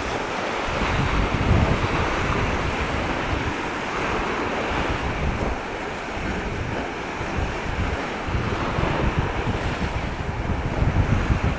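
Strong, gusty wind buffeting the camera microphone in irregular low thumps, over a steady rushing noise of wind and sea.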